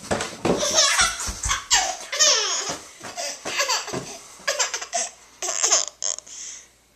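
A young child giggling in repeated bursts of laughter that stop near the end.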